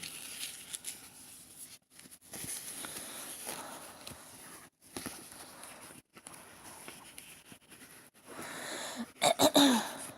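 Rustling and light knocks from handling diamond painting kit packaging. Near the end comes a short, louder voice-like sound that falls in pitch.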